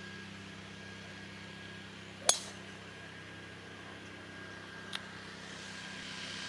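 A metal-headed golf driver striking a ball off the tee: one sharp, ringing crack about two seconds in, over a steady low hum. A much fainter click follows about two and a half seconds later.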